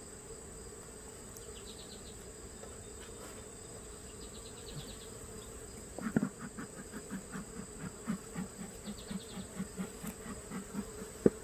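Honeybees buzzing around an open Langstroth hive, a steady hum. From about six seconds in, a louder buzz swells and fades several times a second, then a sharp click near the end.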